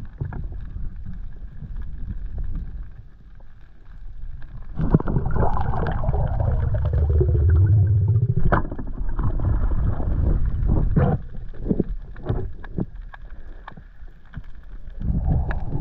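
Muffled underwater water noise picked up by a camera during a freedive, with a louder rumbling swell from about five seconds in. Several sharp clicks and knocks follow in the second half, from the pole spear and its catch against the reef.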